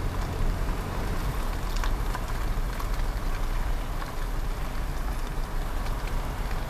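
Steady road and wind noise of a moving car, mostly a deep rumble with a hiss over it.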